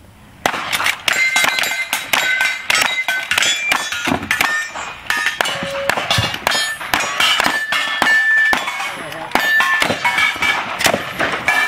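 Rapid gunfire from two shooters' rifles racing against each other, with steel targets ringing out in sharp metallic clangs as they are hit. The shooting starts suddenly about half a second in and goes on without a pause.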